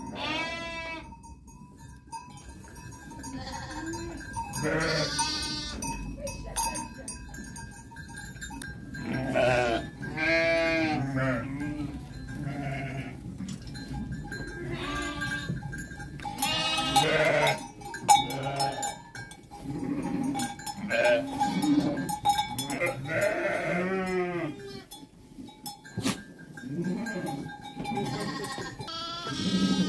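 Sheep and lambs bleating, many quavering calls one after another and overlapping, some loud and close.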